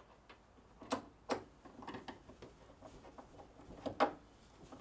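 Hand screwdriver driving the screws of a cover plate onto an electrical receptacle box: a few scattered sharp clicks and taps, the sharpest about four seconds in.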